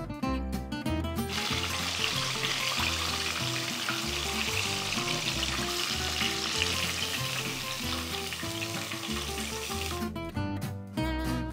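Breaded chicken deep-frying in hot oil in a cast iron pot: a steady sizzle that comes in about a second in and stops near the end, with acoustic guitar music underneath throughout.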